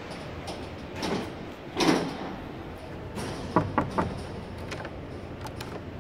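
Wooden door being handled and opened: two rustling handling noises about one and two seconds in, then two sharp latch clicks about three and a half seconds in, over a steady background hiss.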